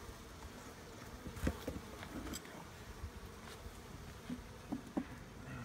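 Honeybees humming steadily in an open hive, with a few light knocks scattered through.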